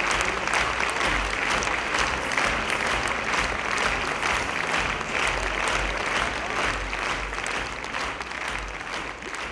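Theatre audience applauding a curtain call: dense, sustained clapping that fades away near the end.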